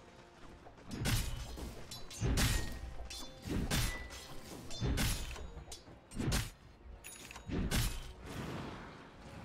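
Video game combat sound effects: a series of heavy crashing impacts, about six strikes roughly 1.3 seconds apart, each with a short ringing tail, over faint game music.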